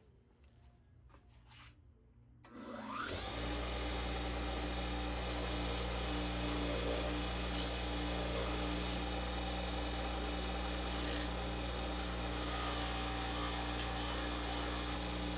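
An electric power tool starts about three seconds in, spinning up, then runs steadily with a grinding hiss as the steel rod is worked down toward a screwdriver blade.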